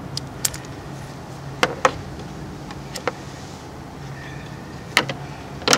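Scattered sharp clicks and light taps of a position sensor and small parts being handled, about seven in all with the loudest near the end, over a low steady hum.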